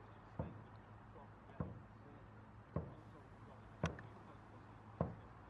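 Dragon boat drum beaten in single strokes about once every 1.2 seconds, five beats in all, keeping time for the paddlers' stroke.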